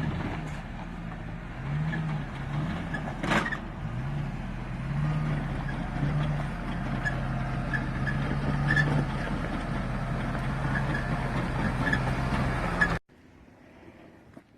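Off-road vehicle engine revving up and down while driving, over rumbling road noise, with one sharp knock about three seconds in. The sound cuts off abruptly near the end.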